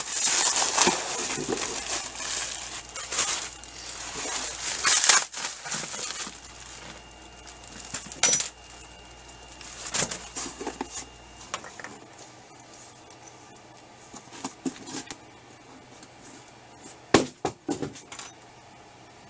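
Rustling and crinkling of packaging as a new pressure-washer pump is unpacked, loud for the first several seconds. Then scattered light clicks and small knocks of the part being handled, with two sharp knocks near the end.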